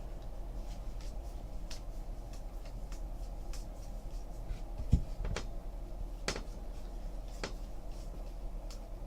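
Trading cards and pack wrappers being handled and flicked through, a scatter of light clicks and rustles with a dull thump about five seconds in, over a steady low hum.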